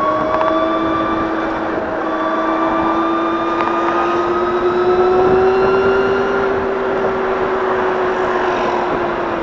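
Gogoro electric scooter's motor whining steadily while riding along, its pitch rising a little and easing off again, over road and wind noise.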